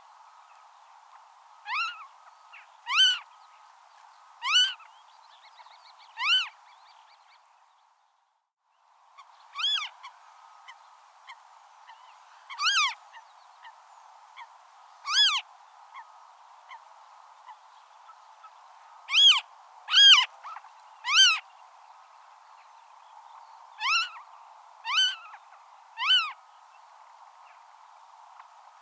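Marsh harrier calling: about a dozen short calls, each rising then falling in pitch, some single and some in quick runs of two or three, over a steady background hiss. The background drops out to silence for about a second and a half a quarter of the way in.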